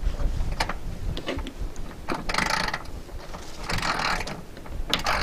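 Ratchet wrench clicking as it tightens the bolts on a solar panel's mounting feet. A few single clicks come first, then two quick runs of rapid clicks about two and four seconds in.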